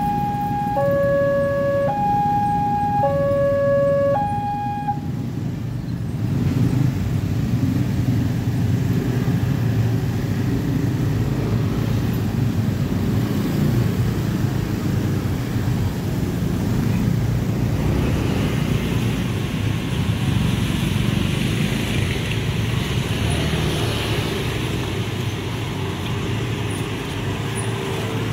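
Railway level-crossing warning alarm sounding an electronic two-tone signal, alternating a higher and a lower tone about once a second as the boom rises, and cutting off about five seconds in. Then a steady rumble of many motorcycle engines crossing the tracks.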